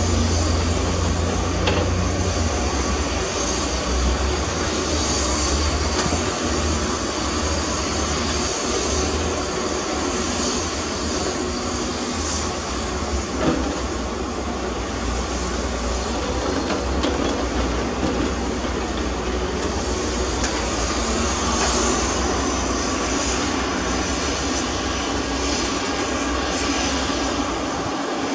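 Heavy diesel earthmoving machinery running steadily with a deep engine rumble, with one brief knock about halfway through.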